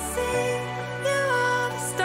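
Music playing from a live DJ mix on CD decks and a mixer: held bass notes with a melody over them, the bass shifting to a new note about a third of a second in.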